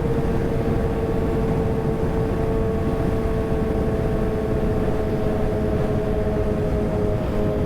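Kawasaki ZX-6R inline-four engine running at a steady high pitch under way, the note sagging slightly, with wind rushing over the microphone.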